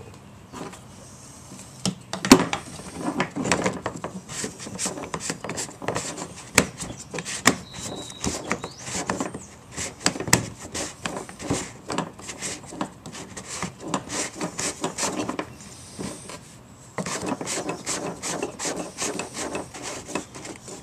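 Plastic fuel-pump lock ring being fitted and turned by hand on the pump opening of a Saab 9-3's fuel tank: a long run of irregular clicks and scraping. It pauses for a second or two about three-quarters of the way through, then carries on.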